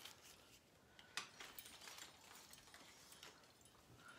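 Near silence with a few faint clicks and rustles of bracelets being handled and picked up.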